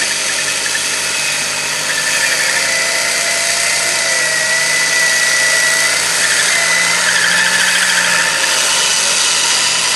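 Competition Land Rover's engine running with the whine of its winch hauling the vehicle on a taut cable; a high whine holds steady for a few seconds in the middle.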